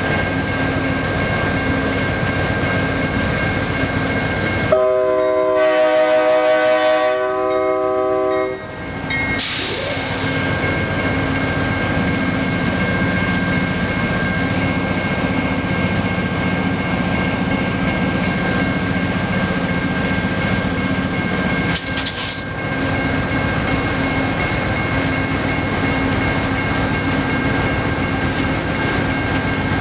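Amtrak GE P40DC diesel locomotive standing with its engine running, a steady hum with fixed whining tones. About five seconds in its horn sounds one multi-note chord for about four seconds, followed by a short hiss of air, with another brief hiss about 22 seconds in.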